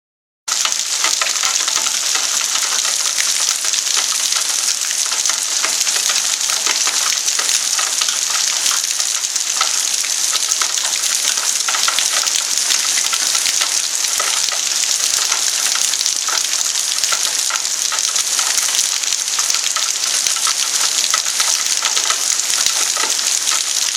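Torrential rain pouring down, a loud, steady dense hiss of countless drops that starts abruptly about half a second in.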